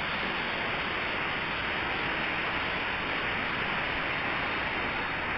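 Heavy rain falling steadily, splashing into puddles of standing water and onto leafy plants as an even, unbroken hiss.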